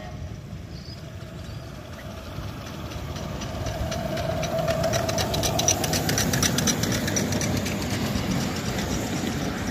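A ride-on miniature-railway train, a small steam-outline locomotive hauling loaded passenger cars, approaches and passes close by. Its wheels click rapidly over the rail joints, and the locomotive hums as it goes past, loudest around the middle.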